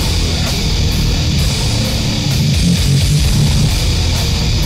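Goregrind music: dense, loud guitar-driven grind that runs without a break.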